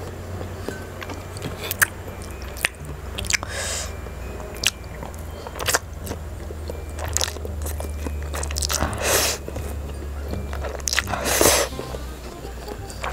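Close-miked eating of spicy instant noodles: wet smacking and chewing clicks, with long slurps of noodles at about 3.5 s, 9 s and 11.5 s, the last the loudest. Soft background music runs underneath.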